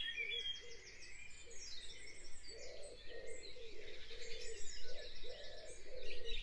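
Dawn chorus of many birds singing at once: high chirps and trills overlapping, over a lower call that repeats about twice a second.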